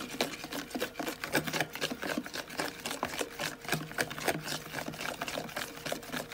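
Wire hand whisk beating cake batter in a plastic bowl, rattling and clicking rapidly and irregularly against the bowl's sides as flour is mixed in.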